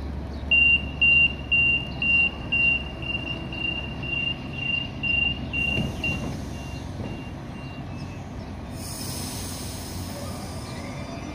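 Sydney Trains M-set (Millennium) double-deck electric train arriving at a platform, with a steady low rumble and a high hiss starting about nine seconds in. Over the first eight seconds a repeating high electronic beep, about two a second, grows fainter and stops.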